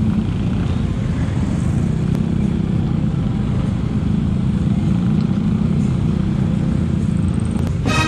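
Yamaha NMAX scooter's single-cylinder engine running steadily while riding, heard as a constant low rumble mixed with wind rush on the microphone. Music cuts in right at the end.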